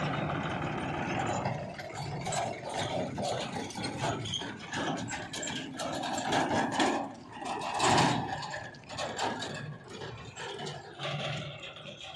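Machinery engine running unevenly, mixed with scraping and rattling strokes as mud is dug and loaded. The loudest scrape or clatter comes about eight seconds in.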